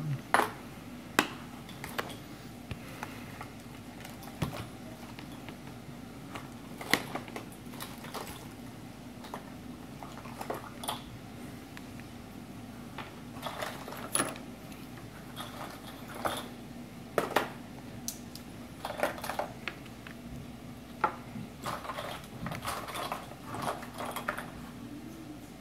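Irregular small clicks and taps, a few of them sharp, from an iPhone 6 Plus being handled during reassembly: the screen assembly is pressed down onto the aluminium frame and small tools are set down and picked up.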